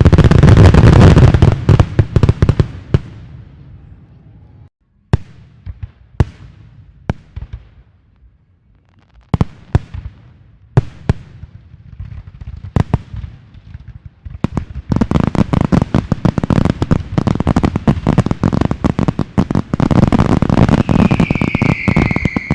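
Fireworks going off: a dense run of crackling at the start, then scattered single sharp bangs, then a long stretch of rapid crackling. A high, slightly falling whistling tone comes in near the end.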